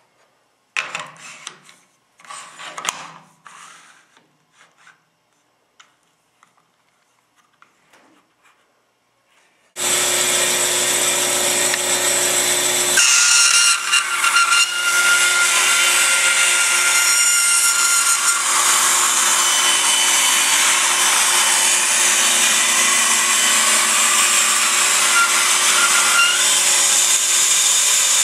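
Short rubs and knocks of wood and tools being handled, then a woodworking power tool starts abruptly about ten seconds in and runs steadily with a low hum and a high whine. Its sound shifts a few seconds after it starts.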